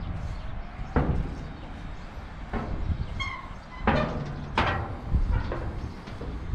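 Footsteps clanking on the steel deck plates of an old rusty footbridge, a sharp knock every second or so at an uneven pace, over a steady low rumble. A short high chirp sounds about three seconds in.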